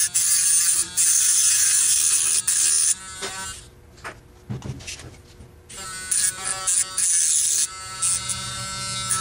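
Dremel rotary tool grinding through the steel spot weld on a rifle's muzzle thread protector: a harsh, high-pitched grinding that comes in stretches, with a whining motor tone between them. The grinding eases off for about two seconds near the middle.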